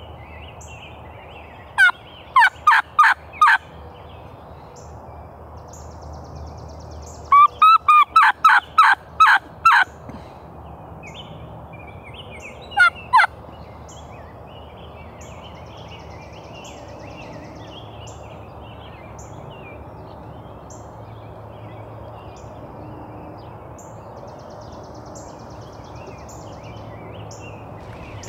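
Hen-turkey yelping from a hunter's turkey call: a run of about five sharp yelps, then a longer run of about eight, then two more.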